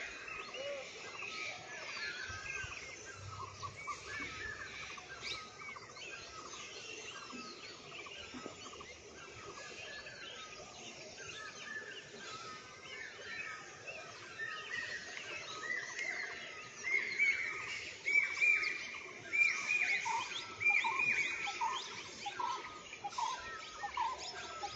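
Many birds chirping and calling together in short, repeated notes, growing louder and busier about two-thirds of the way in.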